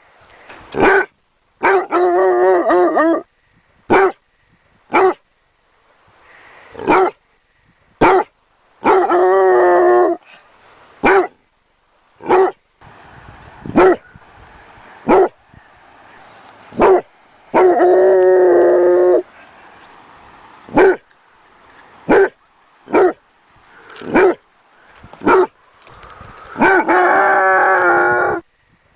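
Basset hound puppy barking: short, sharp barks about a second apart, with four longer drawn-out howling calls of a second or more among them.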